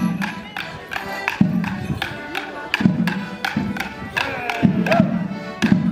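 Morris dance band playing a folk tune on accordion and drum, with sharp wooden clacks of the dancers' sticks striking together on the beat.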